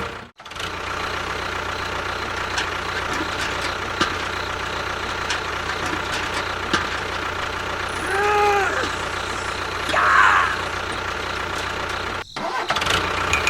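A small engine or motor running steadily. In the second half, two short rising-then-falling tones sound about two seconds apart.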